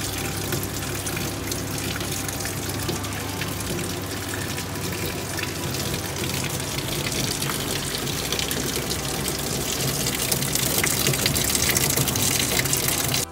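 Water running through the GUNT HM 150.11 pipe-losses trainer and pouring from an open red PVC outlet pipe into the collecting tank: a steady rushing splash over a low hum, growing a little louder near the end.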